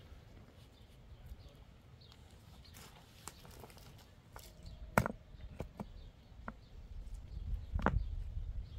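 Rocks clacking and scraping against each other as they are packed by hand around the base of a wooden post set in the ground. There are scattered knocks, a sharp one about five seconds in and another near the end, over a low rumble that grows in the second half.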